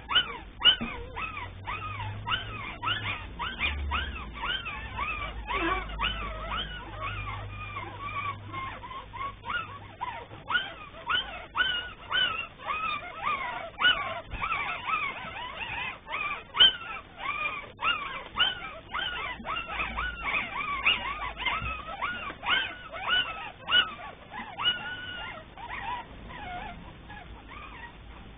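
A litter of 17-day-old Cavalier King Charles Spaniel puppies whimpering and squeaking, many short high cries overlapping at several a second, thinning out near the end.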